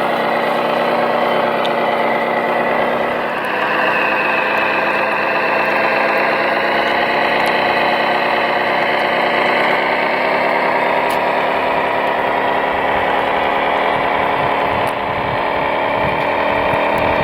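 Radio-controlled model truck running, a steady engine-like drone with a brief dip about three seconds in.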